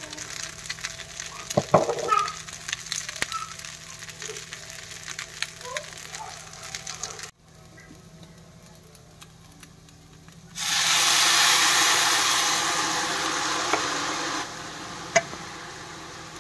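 Rice frying in a non-stick pan, stirred and scraped with a wooden spatula in small clicks and scrapes. About ten seconds in, coconut milk poured into the hot pan sets off a sudden loud sizzle that slowly dies down.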